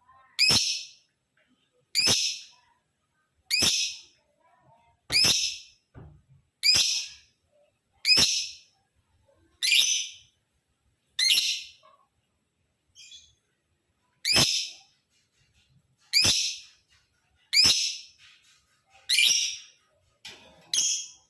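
Male lovebird giving a repeated string of short, high-pitched calls, about one every second and a half.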